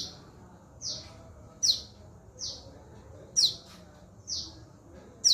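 Two fledgling birds calling back and forth: short, high, downward-slurred chirps about every 0.8 s, a louder call and a fainter one taking turns.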